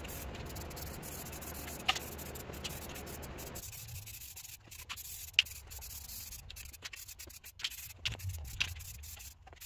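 Aerosol spray-paint can hissing steadily as paint is sprayed, stopping about three and a half seconds in; after that, scattered light clicks and knocks.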